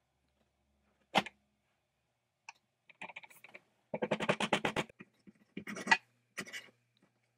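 Metal parts of a small cast-iron band saw being handled and fitted by hand: a sharp knock about a second in, then a quick rattling run of clicks lasting about a second, followed by a few more knocks.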